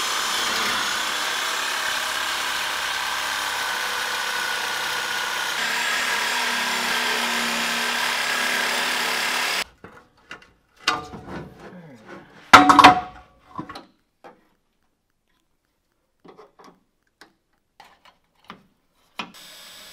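Reciprocating saw cutting through the truck's 2¾-inch exhaust pipe at the ball-and-socket joint, running steadily for about ten seconds and then stopping suddenly. Then a few metal clanks, the loudest a ringing knock about two and a half seconds later.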